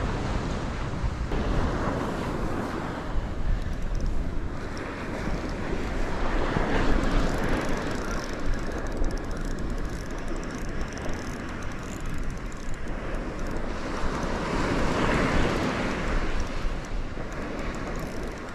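Wind buffeting the microphone over surf washing up the beach, a steady rush with a heavy low rumble that swells and eases every few seconds.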